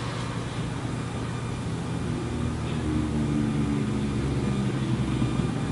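Steady low mechanical hum, with a second set of pitched tones joining about two seconds in and fading out near the end.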